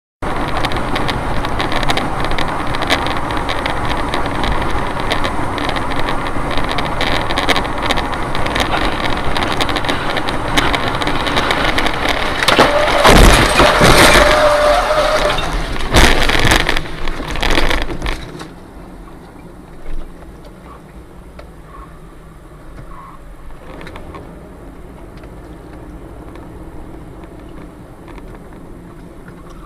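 Car driving on a highway with steady road and engine noise. About thirteen seconds in there is a loud crash with cracking and breaking, followed by a few more heavy impacts. At about eighteen seconds the noise drops suddenly to a faint hum with occasional small knocks.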